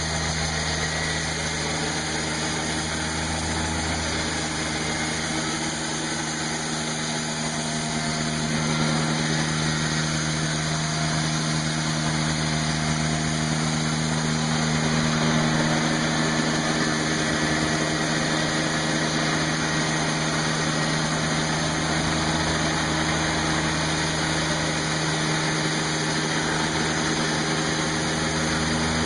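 Kubota diesel engine running steadily under load, driving a portable sawmill's blade as it cuts lengthwise through a large log beam. The noise rises slightly about a third of the way in.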